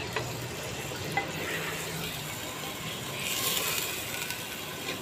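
Chicken frying in oil in a clay handi, sizzling as a yogurt spice mixture is added and stirred in with a wooden spoon. The sizzle grows louder about three seconds in.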